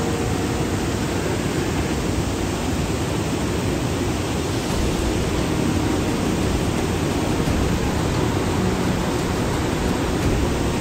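Fast mountain stream rushing and tumbling over boulders in whitewater cascades, a loud steady rush of water.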